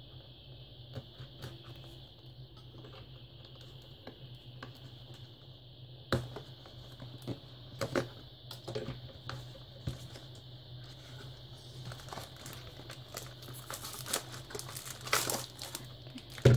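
Cardboard packaging being slit with a utility knife and handled, heard as scattered clicks, scrapes and rustles that grow louder about halfway through. Near the end, plastic wrapping crinkles as the wrapped hard drive is lifted out.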